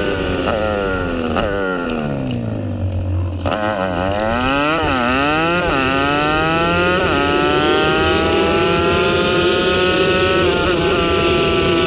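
Small single-cylinder four-stroke pit bike engine on the move. For the first three and a half seconds its pitch winds down as the throttle is rolled off. Then it picks up sharply, revving up and dropping back through a few quick gear changes, and settles into a steady run with the pitch slowly climbing.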